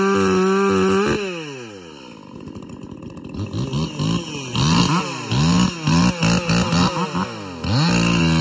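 Two-stroke chainsaw held at full revs in the cut through hard beech, then let off to idle about a second in with a steep drop in pitch. The throttle is blipped several times, each rev rising and falling. Near the end a saw goes back up to steady full revs as a new cut starts.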